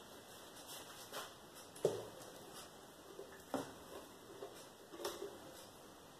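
Quiet kitchen handling of food cartons and containers: a few scattered light knocks and clicks, the loudest about two seconds in.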